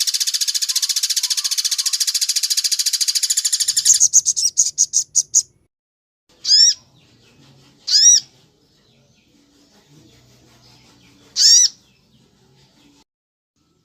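Recorded bird calls: a loud, very fast trill that breaks into about six slower notes and stops. Then come three short, sharp, arched call notes spaced a second or more apart.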